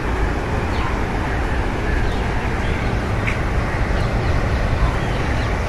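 Steady low outdoor rumble with a few faint, short bird chirps over it.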